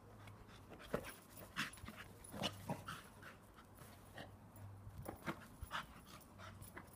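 Staffordshire Bull Terrier breathing hard and scuffling as it plays with a rugby ball: a faint, irregular scatter of short sounds, with a low hum underneath.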